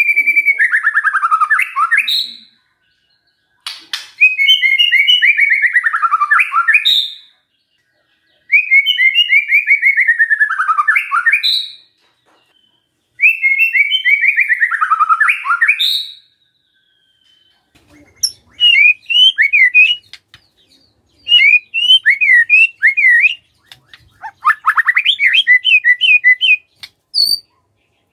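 White-rumped shama singing. A loud phrase of a fast trill that slides down in pitch and ends on a high note is given four times, with short pauses between. About two-thirds of the way in, the song changes to a run of short, sharp whistled notes that sweep up and down.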